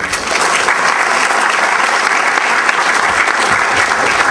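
Audience applauding, a steady sound of many hands clapping that starts suddenly.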